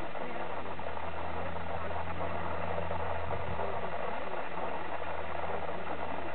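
A steady low engine hum, as from a motor idling, under a constant outdoor background hiss.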